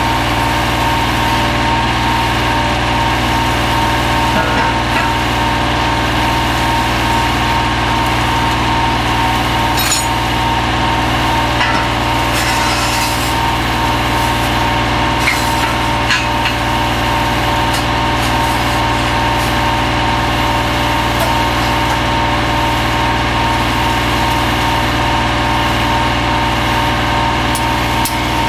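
Hydraulic drive of a small horizontal pipe-jacking boring machine running steadily: a constant machine drone with a steady whine, with a few faint clicks and knocks along the way.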